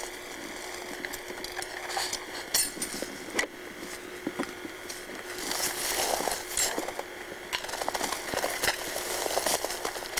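Dry brush and twigs crackling and rustling, with scattered light clicks and clinks, as someone works with a snare at the base of a small tree.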